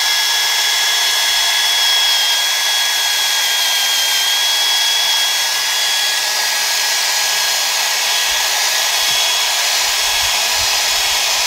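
Cordless drill spinning a wire cup brush against a rusty steel truck frame, a steady high whine with scratching as it scrubs off surface rust and peeling paint.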